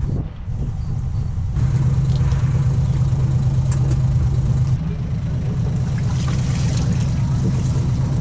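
Sailboat's inboard diesel engine running at low revs while docking, a steady low hum that grows louder about a second and a half in and eases back a little near five seconds.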